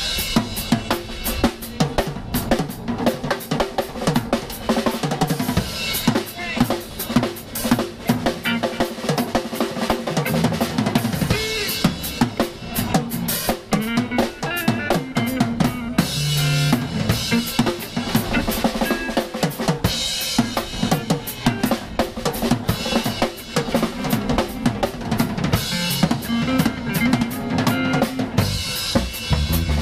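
Live band playing an instrumental passage with no vocals, the drum kit upfront: bass drum and snare strokes in a steady beat, with electric guitar notes underneath.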